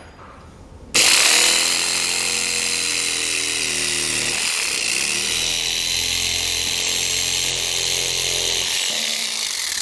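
Compact power mini saw cutting through the thin plastic of a car's grille fascia. It starts about a second in and runs steadily, its motor note briefly dipping about halfway through.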